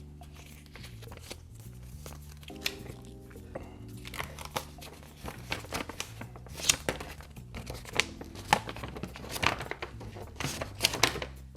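Paper and packaging from a trading-card structure deck being handled as the folded paper game mat is taken out and opened: irregular crackles and sharp rustles, busier and louder in the second half, over steady background music.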